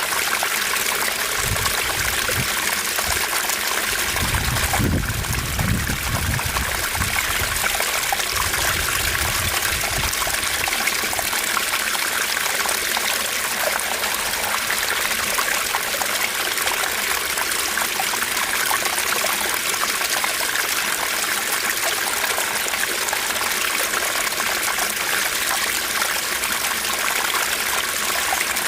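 Small stream trickling and babbling over rocks, a steady rush of flowing water. A low rumble rises under it in the first few seconds and fades out by about ten seconds in.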